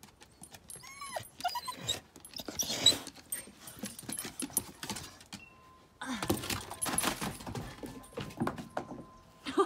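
Black Labrador dog giving a few short rising-and-falling whines about a second in, her metal collar tags jingling as she moves. About six seconds in comes a stretch of scuffling and thudding footsteps on the wooden deck as she runs off.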